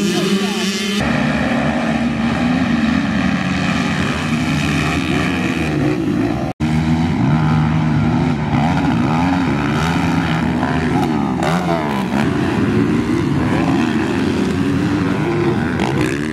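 Several small youth motocross bikes racing, their engines revving up and down over and over. The sound cuts out for an instant about six and a half seconds in.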